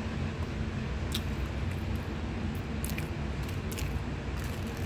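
A steady low rumble, with a few short, crisp crackles as a flaky puff pastry is pulled apart by hand on a plastic bag.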